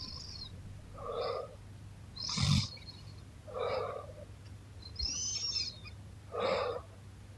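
A sleeping young woman's snoring breaths, five in a row, one every second and a half or so, alternating between a short low snore and a higher, whistling hiss.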